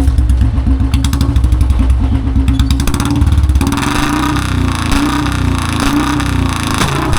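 Royal Enfield Bullet single-cylinder engine running through a C-bend pipe and long-bottle wide-mouth silencer, revved to make exhaust pops ('pataka'). Rapid heavy thumps give way about halfway through to a rougher, wavering rev. The result is a full bass sound, though the pops come unevenly; the owner puts this down to the bike not having done pops for a while.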